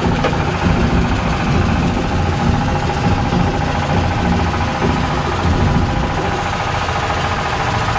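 Fishing boat's engine running steadily: a low hum under an even, mid-pitched whine.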